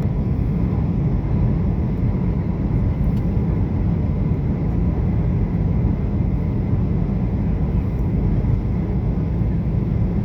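Steady roar of a jet airliner's cabin on final approach, the engines and airflow making an even, deep noise with a faint steady whine above it.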